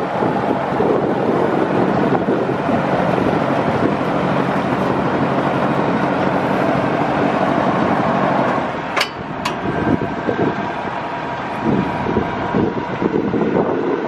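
The diesel engine of a Wirtgen W250i cold milling machine running steadily, with wind buffeting the microphone. About nine seconds in there are two sharp clicks, and a thin steady whine follows over the running machine.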